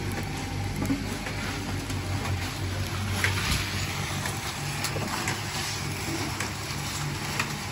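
Small diesel engine running steadily, driving a rotating drum that roasts crackers in hot sand. A few light clicks and scrapes sound over the hum.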